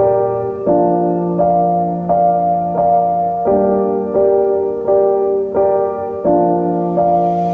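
Background music: a gentle piano playing a slow, repeating pattern of notes, about one new note every 0.7 seconds.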